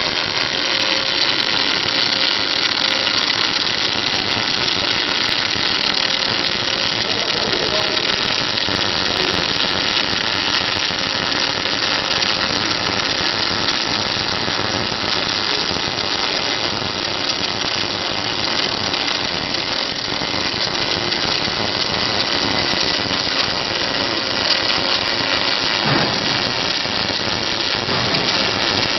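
Steady industrial machinery noise: a dense, even hiss with faint steady tones and no clear rhythm.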